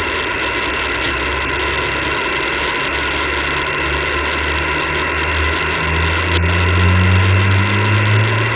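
Steady radio receiver hiss: band noise on the open channel, with a low hum that rises slowly in pitch and grows louder from about six seconds in.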